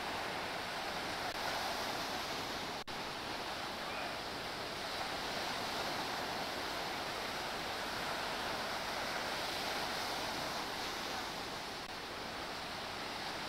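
Ocean surf breaking and washing up a sandy beach: a steady rushing hiss, with a momentary dropout about three seconds in.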